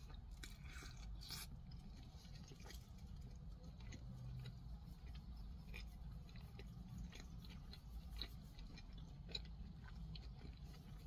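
Faint close-up chewing of a soft sandwich: small wet clicks and smacks of the mouth, a couple of them sharper about eight and nine and a half seconds in, over a low steady hum.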